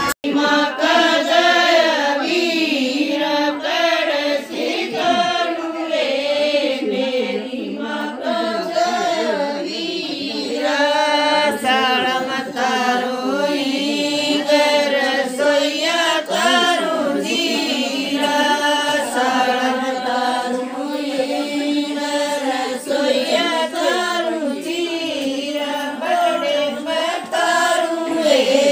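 A group of women singing a Haryanvi folk wedding song (bhat geet) together.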